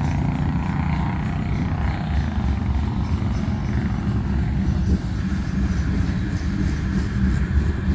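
Freight cars, mostly tank cars, rolling past on steel wheels: a loud, steady rumble of wheels on rail.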